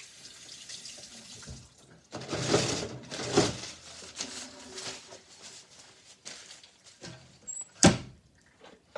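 Kitchen faucet running as sticky hands are washed under it, the water loudest for a second or two about two seconds in and quieter after. A single sharp knock near the end.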